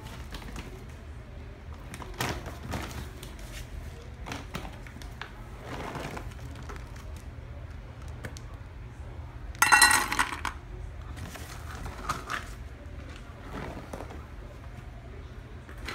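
Dry dog kibble being scooped from a crinkly foil-lined bag: scattered light clicks and rustles, then one loud ringing rattle of about a second, about ten seconds in, as the kibble pours into a stainless steel bowl.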